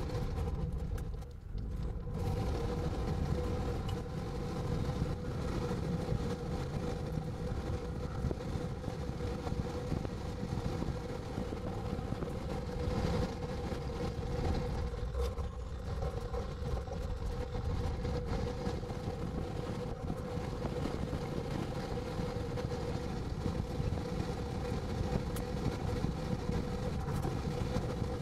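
Steady drone of a car on the move: low engine and road rumble with a constant hum over it.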